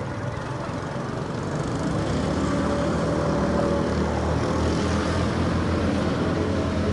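A steady low engine rumble with a faint hum on top, growing louder about two seconds in and then holding.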